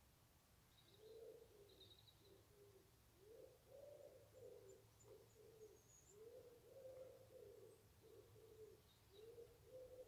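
A pigeon cooing faintly, one low phrase of several notes repeated again and again from about a second in. A few faint high chirps of small birds come in near the start and the middle.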